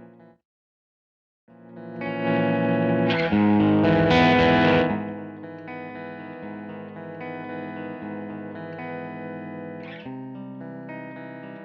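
Electric guitar played through the Shattered Glass Audio Ace virtual amp plugin, a clean to lightly saturated tone. The playing stops for about a second, resumes, turns much louder and brighter for about three seconds, then settles back to a softer, steadier level as the amp's controls are tried.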